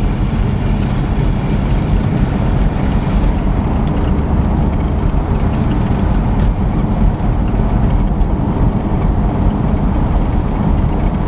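Classic Ford Thunderbird under way at a steady cruise: a steady low rumble of engine and road noise, smooth with no rattles.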